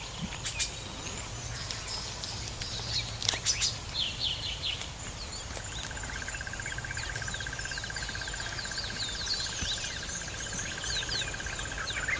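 Outdoor bush ambience: many small birds chirping and calling. About halfway through, a long, evenly pulsed trill joins in and runs on.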